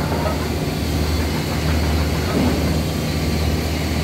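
Steady machinery din of an aluminium wheel machining line: a constant low hum under an even wash of mechanical noise.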